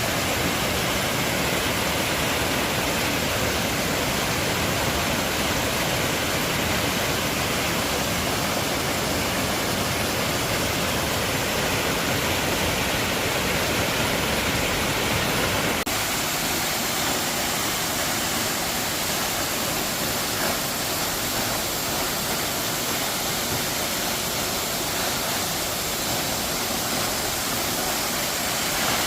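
Giessbach Falls' water rushing down in a steady, loud roar of falling water. The sound's tone changes slightly about halfway through.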